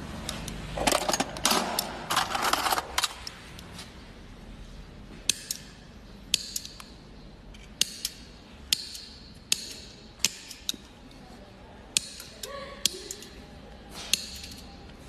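Sharp metallic clicks, each with a short ring, roughly one a second, as a hand tool works a thin piece of metal. A burst of scraping and rattling comes about a second in.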